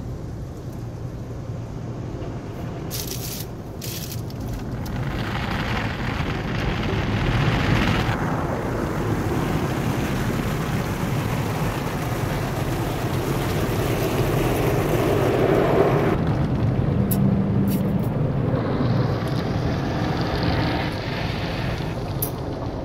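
Automatic car wash heard from inside the car's cabin: water spray and hanging cloth strips hitting the windshield and body make a steady rushing noise. It swells and eases several times as the equipment passes over, with a few light knocks.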